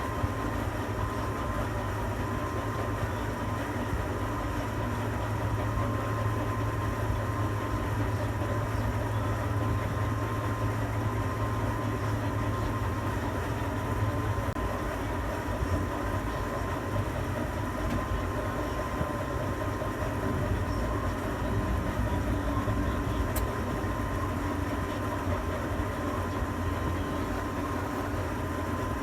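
Steady machinery hum inside a tower crane operator's cab, low and constant, with a thin high whine running through it and a single small click near the end.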